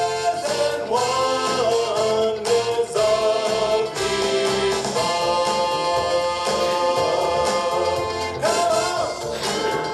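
A recorded song with singing over band accompaniment: long held sung notes over a steady beat.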